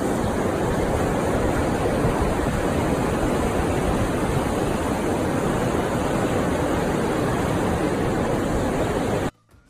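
Steady rush of ocean surf mixed with wind on the microphone, a loud, even roar of noise that cuts off abruptly near the end.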